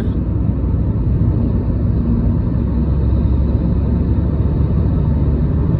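Steady low rumble of a car driving at speed, heard from inside the cabin: road and engine noise.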